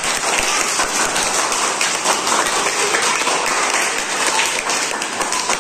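A group of children applauding, many hands clapping at once.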